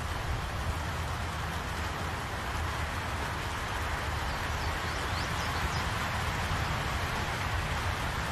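Steady rain falling on trees and grass, an even hiss with a low, constant rumble underneath.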